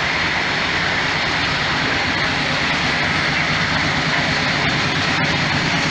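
Norfolk Southern GE diesel locomotive, working as a mid-train DPU, roaring at high throttle, loud and steady, over the rumble of tank cars rolling slowly past.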